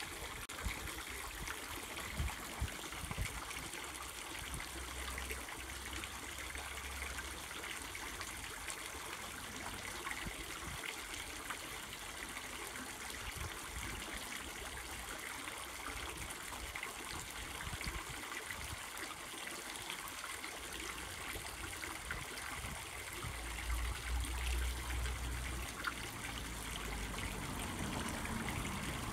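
Fountain jets splashing steadily into a round stone basin, several thin arching streams falling onto the water. A low rumble comes and goes during the first several seconds and again near the end.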